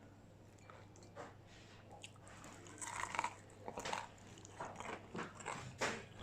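Close-up crunching and chewing of crispy fried food, quiet at first and then in irregular crackly bites from about halfway through.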